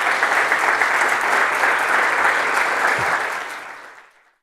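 Audience applauding: steady, dense clapping that fades away near the end.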